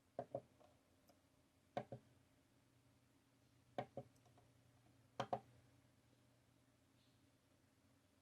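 Four pairs of short plastic clicks a second or two apart, each pair a quick double click: the timer buttons of a UV/LED nail dryer being pressed and released.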